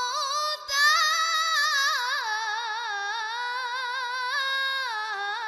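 A boy's high voice reciting the Quran in melodic tilawah style through a microphone. After a short breath about half a second in, he sings one long, richly ornamented phrase that falls slowly in pitch.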